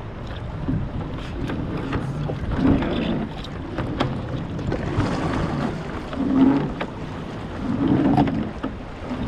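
Water splashing and sloshing around a kayak, in uneven surges with a few sharp knocks.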